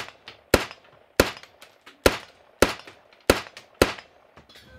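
Ruger Mini-14 rifle fired in steady semi-automatic shots, about one every half-second to second, seven shots in all.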